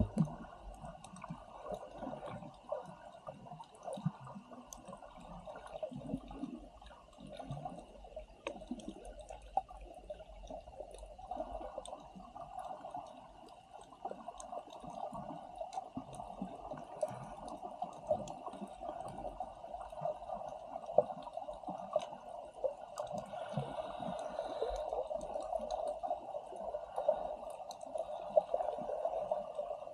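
Muffled water noise, as heard with the microphone in or at the water: a steady dull rush that grows a little stronger about a third of the way in, with many faint scattered clicks.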